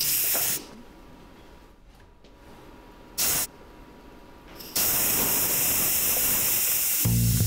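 Instant Pot pressure-release valve venting steam, a quick release of pressure: two short hissing blasts, then a continuous hiss with a high whistle in it from a little after halfway. Music comes in near the end.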